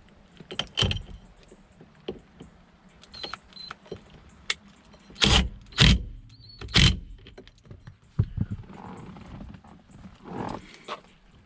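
Hand tools and metal hub hardware clinking and knocking during work on a car's steering shaft: irregular clicks, with a few sharp, louder knocks about five to seven seconds in and short metallic rings.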